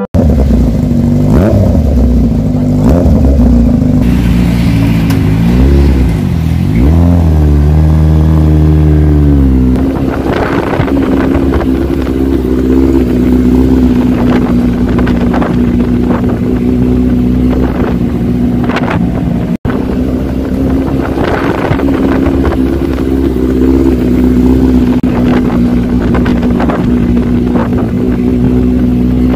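Yamaha YZF-R1's 1000 cc inline-four engine, revved up and down several times over the first ten seconds, then running steadily at low road speed with frequent short crackles.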